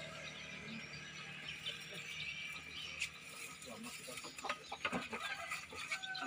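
A thin plastic bag crinkling, and dry bait grains rattling as they are scooped and poured into it, in an irregular run of small clicks and rustles.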